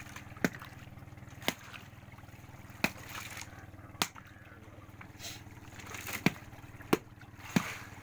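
Sharp wooden knocks, seven at uneven intervals of about a second, with a longer gap in the middle: a wooden club striking a hooked yellowfin tuna held alongside the boat's outrigger. A steady low hum and lapping water run underneath.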